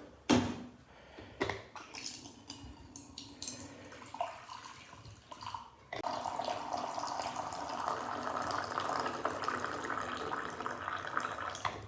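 Black coffee being poured into a cup: a few light clinks and knocks, then from about halfway a steady stream of liquid running for about six seconds.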